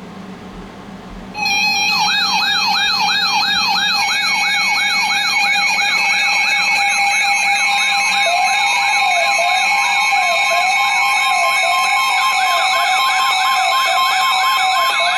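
Several electronic emergency sirens sound together, starting suddenly about a second and a half in. A fast yelp sweeps up and down about three times a second over steady high tones, and a slower wail joins about halfway through.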